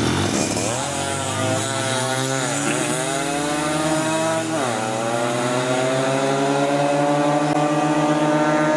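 Racing motorcycle engine accelerating hard through the gears: its pitch climbs, dips briefly at a shift about two and a half seconds in, drops again at a shift about four and a half seconds in, then climbs steadily.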